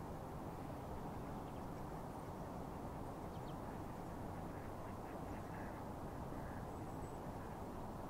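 Ducks quacking faintly a few times, mostly in the middle and later part, over a steady low background rumble.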